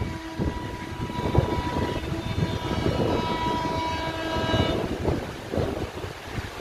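Horn of an approaching Indian Railways electric locomotive: one long steady blast of about five seconds that stops about a second before the end, heard over a steady rumbling background.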